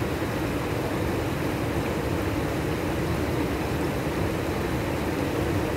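Steady rushing roar of a swollen, fast-flowing river in flood, an even low rumble that does not change.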